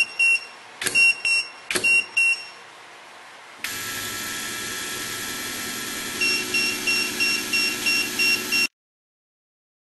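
KILEWS SKD-BE brushless electric screwdriver fastening three times in quick succession, each ending in a click and a double beep from its built-in counter. Then a steady whir, and about six seconds in a fast repeating warning beep, about three a second, joins it: the tool's alarm for a stuck, wrong or unfastened screw. Everything cuts off suddenly near the end.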